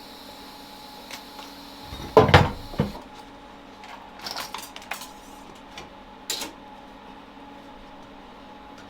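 Metal clanking and clattering, with a loud clunk about two seconds in and lighter knocks and taps a few seconds later. A steady high hiss runs underneath and cuts off about three seconds in.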